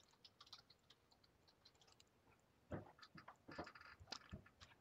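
Near silence with a scattering of faint short clicks, bunched together in the second half.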